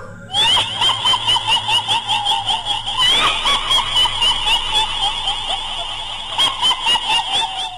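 A shrill, high-pitched laugh with a fast warble, an edited-in horror sound effect. It starts abruptly about half a second in and cuts off just before the end.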